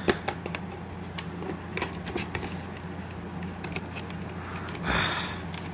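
Handling noise from a molded plastic DVD box-set case: scattered light clicks and taps as the case and its parts are moved and opened, with a short rustle about five seconds in.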